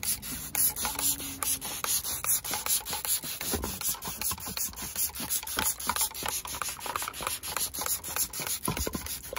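Hand trigger spray bottle of water pumped rapidly and repeatedly onto a fabric car seat, each squeeze a short spray hiss, about four a second.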